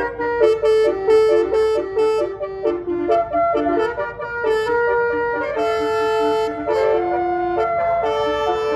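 Telolet basuri bus horn playing a tune: a quick run of short and held notes, several pitches sounding together as chords, with a longer held chord past the middle.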